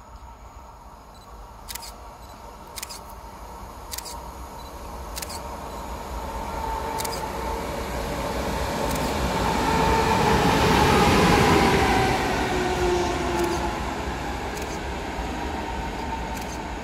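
Siemens Vectron electric locomotive running light, with no wagons, approaching and passing: its rumble swells to a peak about two-thirds of the way through and then fades, and its whine drops in pitch as it goes by. Sharp clicks come about once a second during the approach.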